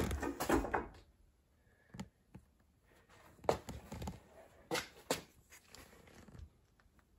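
Handling noise: irregular knocks and rustles, loudest in the first second, then a few scattered short knocks.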